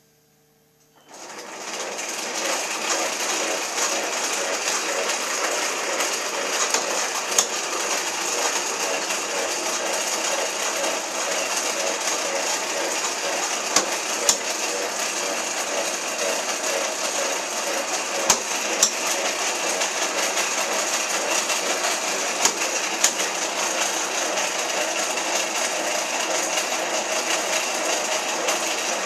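Small electric motor driving the plastic gears of a clear model 4-speed sequential transmission, switching on about a second in and then whirring steadily, with a few sharp clicks along the way.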